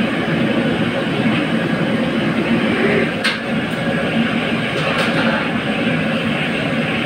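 Steady loud machinery noise, with a sharp click about three seconds in and another about five seconds in.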